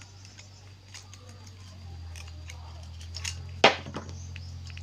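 Small clicks and taps of metal and plastic parts being handled and pried apart while a gas-stove ignition assembly is taken to pieces, with one sharp, loud click about three and a half seconds in. A low steady hum comes in about two seconds in.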